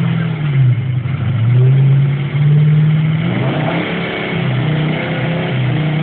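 Off-road trial vehicle's engine revving hard and unevenly as it crawls up over a large boulder. The pitch falls and rises with the throttle, with a sharp climb a little past halfway.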